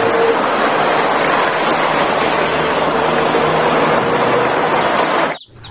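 Loud, steady traffic rush from a DAF CF articulated lorry driving along a street, with a faint engine hum under the road and wind noise. It cuts off suddenly near the end.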